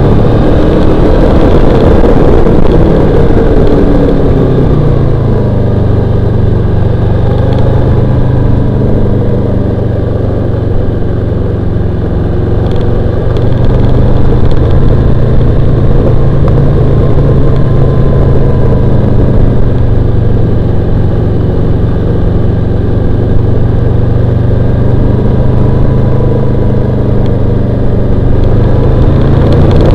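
Honda VFR800X Crossrunner's V4 engine heard from the bike while riding. Its pitch drops over the first few seconds as the revs fall, then it runs steadily at a constant speed, picking up slightly near the end, with a steady rush of wind noise underneath.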